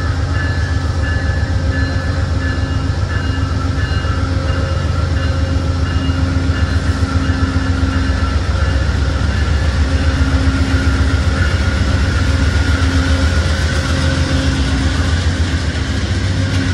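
Amtrak GE Genesis P42DC diesel locomotive rolling slowly past along a platform, its diesel engine running with a loud, steady low rumble and a pulsing hum.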